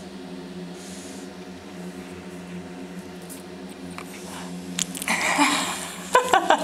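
Chihuahua puppy nosing and pawing at the camera right up against the microphone: a loud scuffling about five seconds in, then a few sharp knocks near the end. A steady low hum runs underneath.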